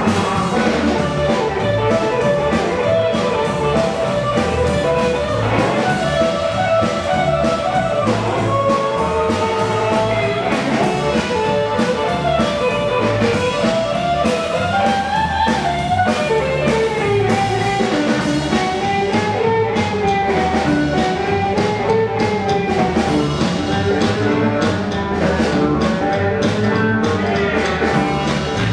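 Rockabilly band playing live: a guitar lead over a steady drum beat, with no singing.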